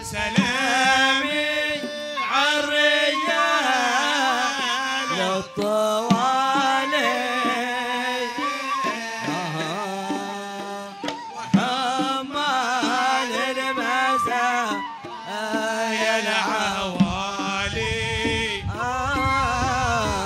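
Male voice singing a Hadhrami sung poem (qasida) in long, wavering, ornamented lines, with a few sharp hand-drum strikes.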